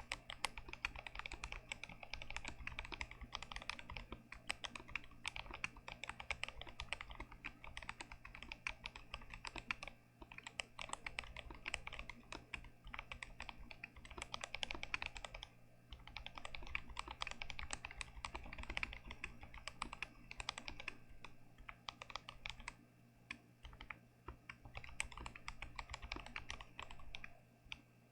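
Continuous typing on an unmodded GMMK Pro mechanical keyboard with Gazzew Boba U4T tactile switches: rapid runs of key strokes, broken by short pauses every few seconds.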